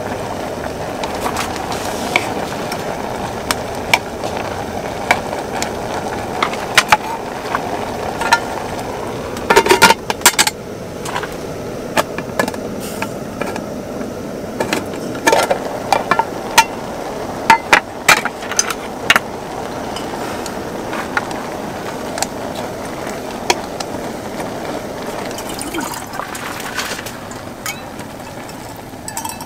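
Chopsticks clinking and scraping against an aluminium military mess tin as ramen noodles are stirred, in many short sharp clicks over a steady hiss. Near the end, water is poured from a cup into the pot.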